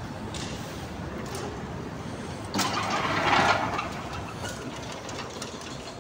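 A sudden loud hiss starts about two and a half seconds in and fades over about a second and a half, over steady background noise.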